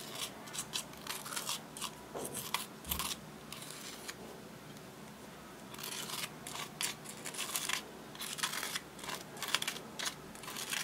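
Small plastic spoon scraping pressed glitter eyeshadow out of its pan, in runs of short, crisp, scratchy strokes with a pause of about two seconds in the middle.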